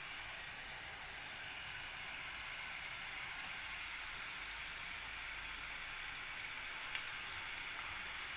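Food sizzling steadily in hot oil, with one sharp click about seven seconds in.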